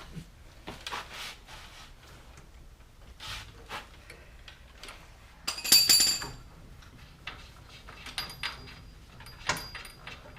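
Hand tools clicking and clinking against metal parts, with one loud ringing metal clank about six seconds in and a few lighter ringing clinks near the end.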